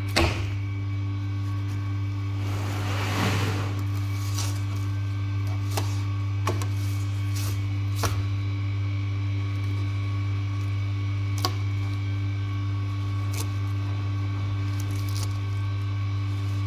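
A steady low hum with a few sharp clicks and taps and a brief scraping swish about three seconds in, as a fillet knife and gloved hands work a zander fillet on a plastic cutting board.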